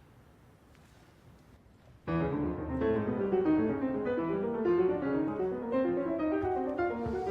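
Faint room tone, then piano music starts suddenly about two seconds in and carries on as a stream of quick notes.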